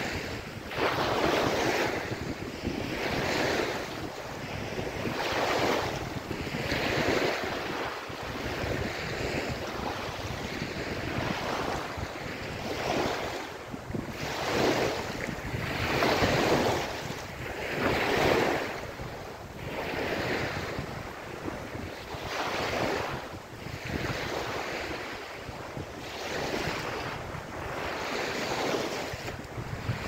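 Small waves breaking and washing up a sandy beach. The surf swells and falls back every couple of seconds.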